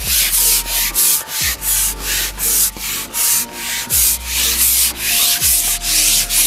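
Carbon match-fishing pole being shipped out by hand, rubbing and scraping close to the microphone in an even rhythm of about three strokes a second, with a few low thumps.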